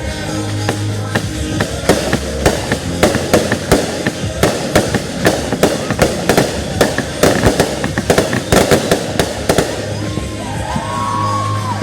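Fireworks going off in a rapid run of sharp bangs and crackles, with music playing underneath; the bangs thin out about ten seconds in.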